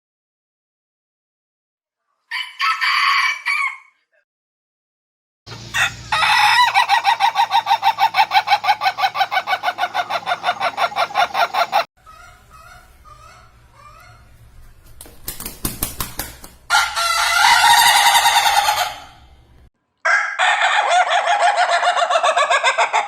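Indonesian laughing chicken (ayam ketawa) roosters crowing in several separate bouts with silent gaps between them. The longest crow, starting about six seconds in, runs on for about five seconds as a long rapid string of stuttering notes, the breed's laugh-like crow. A quieter stretch of short clucking calls follows before two more loud crows near the end.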